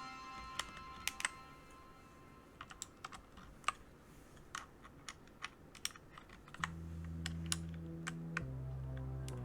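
Scattered, irregular clacks of a mechanical keyboard with brown switches as keys and keycaps are pressed and handled. Background music with low bass notes comes in about two-thirds of the way through.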